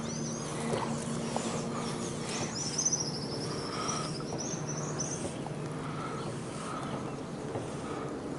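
A bird calls with a fast trill of high chirps lasting about three seconds, with other softer bird calls here and there, over a steady low hum of outdoor background.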